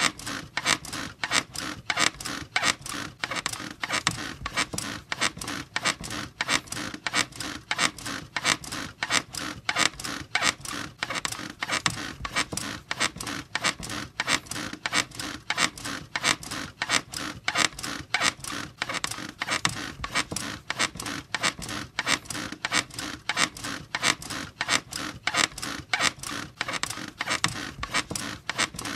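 Bed squeaking over and over in a fast, even rhythm, several squeaks a second.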